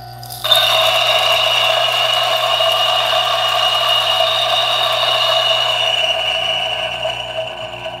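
DF64 single-dose coffee grinder with SSP multi-purpose burrs grinding a 10 g dose of light-roast beans. The motor cuts in suddenly about half a second in, with a steady whine over the crunch of the beans, and the grinding thins out from about six seconds in.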